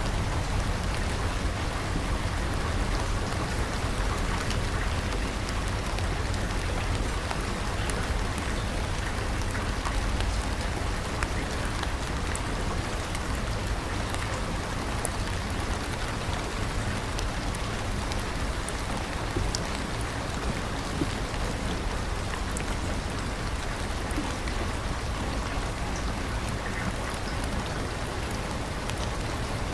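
Steady rain falling, an even hiss with many small drop ticks scattered through it and a deep low rumble underneath.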